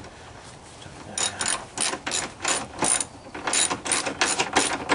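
Socket ratchet being worked back and forth, tightening a small nut at the battery: repeated ratcheting strokes, about three a second, starting about a second in.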